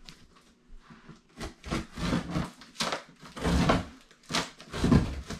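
A cardboard case being handled and opened: a run of short, irregular scrapes, rustles and knocks, louder from about a second and a half in.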